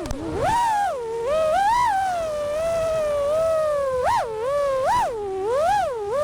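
FPV racing quadcopter's brushless motors (Vulcan Innovations motors) whining, the pitch swooping up and down with the throttle, with two quick sharp punches past halfway and a rising climb near the end.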